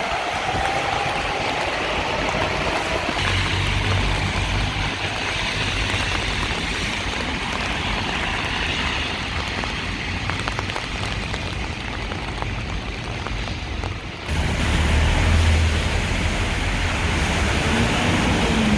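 Heavy rain hissing on a city street, with the low rumble of passing traffic. The sound changes abruptly about fourteen seconds in, becoming louder with more low rumble.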